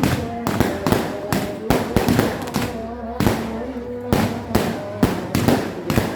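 Fireworks and firecrackers going off in rapid, irregular succession, several sharp bangs a second.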